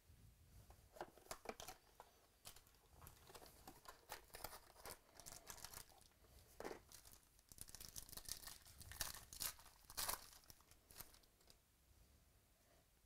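Faint crinkling, tearing and rustling of trading-card packaging: a cardboard hobby box being opened and a card pack torn open, with cards handled in the hand.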